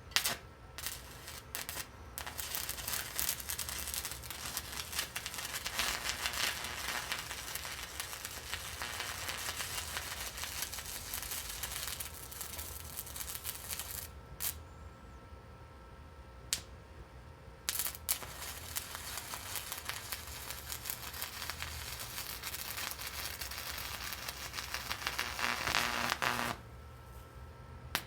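Arc welder laying a bead on rusty, painted scrap steel: the arc's steady crackling sizzle. It breaks off about halfway, strikes briefly a couple of times, then runs again and cuts off shortly before the end.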